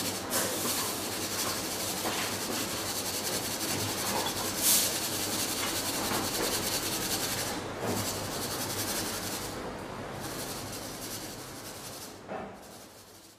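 Hot oil and freshly fried garlic sizzling in a strainer shaken over a pan, a steady hiss that gradually dies away as the garlic cools. One louder sudden sound comes about four and a half seconds in.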